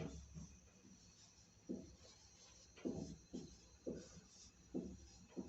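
Writing by hand: a series of short, irregular pen or marker strokes, faint.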